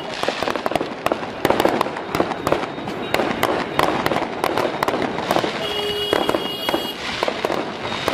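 Fireworks going off in a dense, rapid string of sharp bangs and crackles, with a brief steady high tone about six seconds in.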